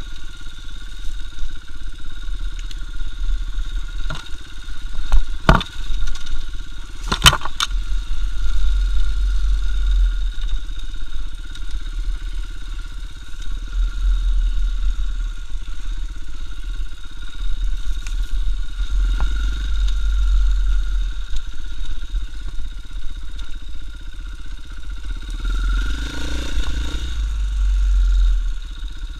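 KTM EXC 450 single-cylinder four-stroke enduro bike's engine running as the bike is ridden. There are a few sharp knocks about four to seven seconds in.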